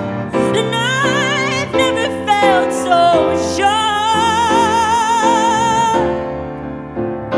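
A woman singing long, ornamented notes with a wide vibrato over piano accompaniment, in several phrases. Her voice dies away about six seconds in, leaving the piano softer.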